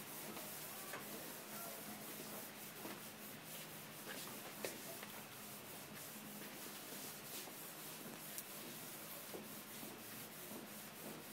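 Charcoal scratching and rubbing across large drawing paper in quick, sweeping strokes, with a couple of sharper ticks where the stick strikes the sheet.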